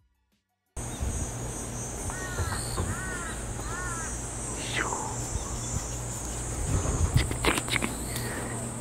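A steady, high-pitched buzz of cicadas in summer trees, coming in suddenly about a second in. A bird calls three times in quick succession about two seconds in.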